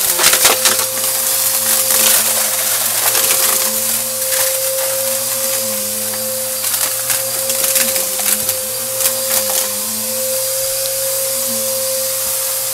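Bissell AeroSwift vacuum cleaner running with a steady motor whine and rushing airflow, while scattered crackles and clicks of crunchy debris are sucked up.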